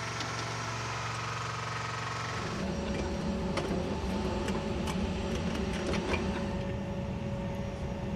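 An engine idling with a steady hum. About two and a half seconds in it gives way to a rougher engine or machinery rumble with scattered sharp ticks.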